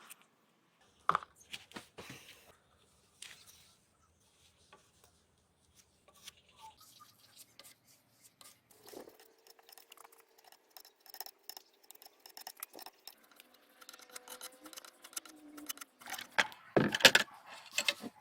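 Scattered clinks and knocks of hard objects being handled, with the loudest knocks bunched near the end.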